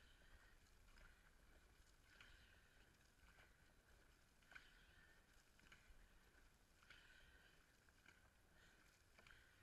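Near silence, with faint soft splashes about once a second from a dragon boat crew's paddles dipping into the water in steady strokes.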